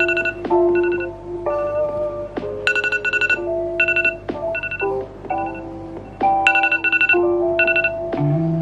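Phone alarm ringing: a repeating electronic melody with short, rapidly repeated high beeps about once a second. Near the end low bass notes of background music come in.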